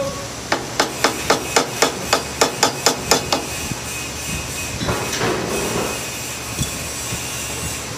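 Hand hammer striking a steel punch held against a sheet-metal bending machine: a quick run of about a dozen sharp metal taps, roughly four a second, stopping about three and a half seconds in.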